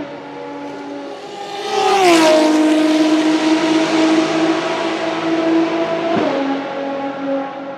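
Ferrari XX-programme track car's V12 engine running hard down a wet straight, its note stepping down in pitch twice, at about two seconds and about six seconds in. The engine grows louder from about two seconds, over the hiss of tyres throwing up spray.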